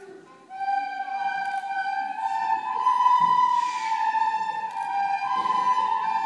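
A group of children playing recorders together in unison, coming in about half a second in with long held notes that step between a few pitches.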